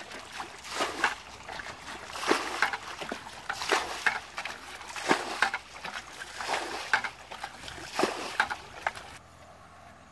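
Water being scooped with a bucket from a shallow muddy ditch and thrown out, a splash every second or so: bailing the pool dry to catch fish. The splashing stops near the end.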